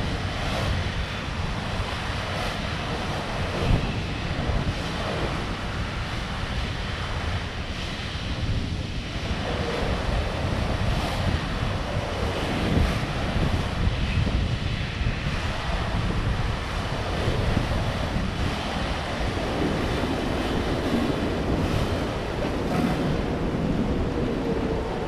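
Automatic train washer working on a Keikyu electric train: a steady rushing noise of spraying water and scrubbing brushes, with a faint tone coming in near the end.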